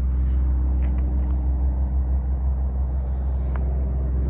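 Steady low mechanical hum and rumble, with a few faint ticks.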